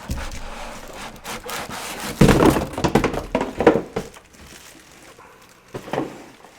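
Unboxing noise: a cardboard box and its packing being handled, with a run of knocks, thunks and rustling as the air purifier is taken out. The loudest stretch comes a couple of seconds in, and there is one more knock near the end.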